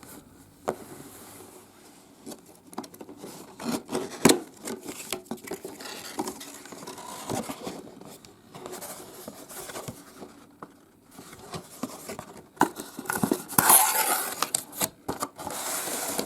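A cardboard figure box being handled and opened by hand: scattered taps, clicks and scrapes, with a louder stretch of rustling and crinkling near the end.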